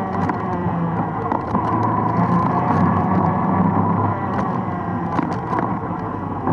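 ATV engine running steadily as the four-wheeler rides along a leaf-covered dirt trail, with a few sharp knocks scattered through it.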